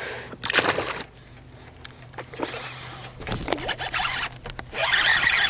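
Angler handling a baitcasting reel: a short rush of noise about half a second in and a few small knocks. Near the end comes a louder, fluttering whir as the spool pays out line on a cast.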